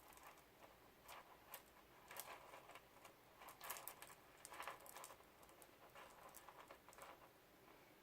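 Faint, irregular clicking and rustling of beads knocking together as they are threaded onto stretchy elastic cord by hand.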